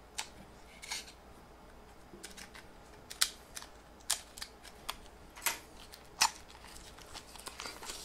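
Small metal picture-frame parts clicking and tapping against each other as they are handled: a string of separate sharp clicks at irregular intervals.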